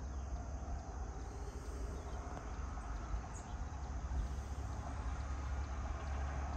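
Steady outdoor insect chorus of crickets and similar insects over a constant low rumble, with no single sound standing out.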